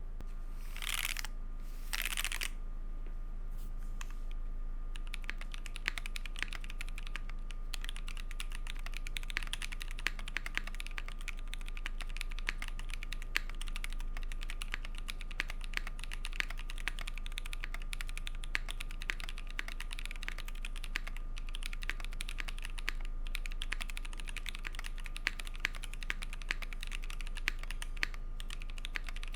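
Mechanical keyboard with lubed Kailh Polia tactile switches and GMK keycaps being typed on. The typing is fast and steady from about five seconds in, after two short swishing noises near the start.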